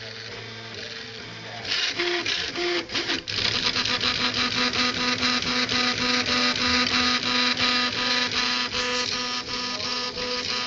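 Prusa Mendel RepRap 3D printer printing, its stepper motors whining in several steady tones with a regular beat as the print head changes direction a few times a second. Quieter at first, it gets louder and busier about two seconds in.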